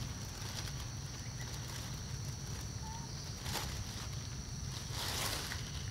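Outdoor ambience: a steady high-pitched insect drone over a constant low rumble, with two brief soft rustles in the second half.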